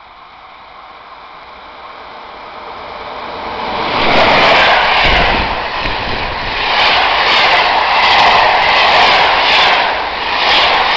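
EU07 electric locomotive hauling a passenger train past at speed: a rising rush as it approaches, loudest as the locomotive goes by about four seconds in, then the loud rushing of the coaches passing, swelling and ebbing every second or so.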